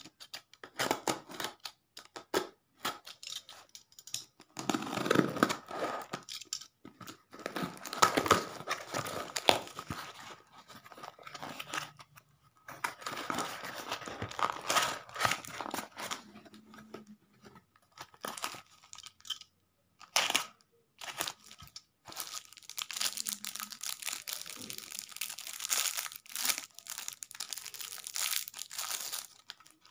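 A cardboard shipping box being opened by hand: packing tape cut and torn, cardboard flaps rustling and ripping, with scattered sharp clicks. Near the end a thin plastic wrapper crinkles as it is pulled off the glass cutter inside.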